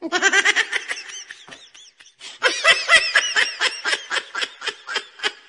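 A person laughing in quick repeated bursts, two bouts with a brief pause between them.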